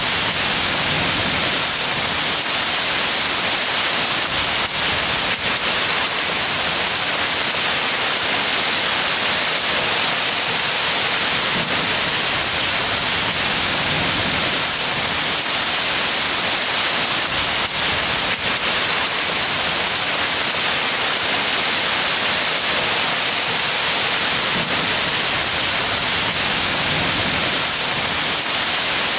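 Heavy hailstorm: hail and rain pelting down in a dense, steady hiss, with a few sharper knocks of hailstones striking.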